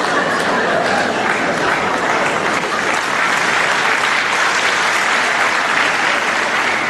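Theatre audience applauding, a dense steady clapping that holds level throughout.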